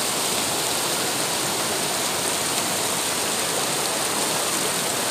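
Shallow mountain stream rushing over rock slabs and boulders in small rapids: a steady, even rush of water.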